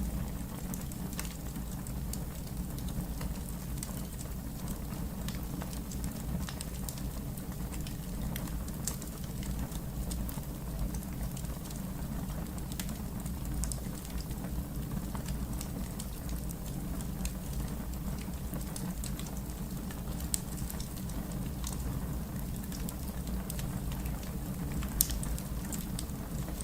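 Fire crackling: scattered sharp snaps and pops over a steady low rumble of the flames, with two louder pops in the second half.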